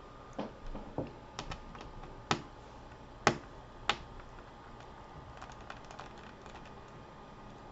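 Irregular small clicks and taps of a magnetic Phillips screwdriver working the screws out of a laptop's LCD mounting brackets. About half a dozen sharp clicks come in the first four seconds, followed by fainter ticks.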